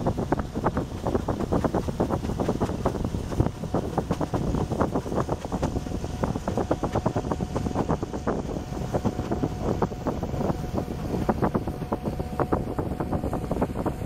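Wind buffeting the microphone in irregular gusts, over the steady running of a boat engine on open water.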